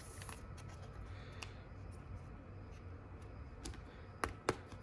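Trading cards being handled and slid into a plastic top loader: faint rustling with scattered light plastic clicks, and two sharper clicks near the end.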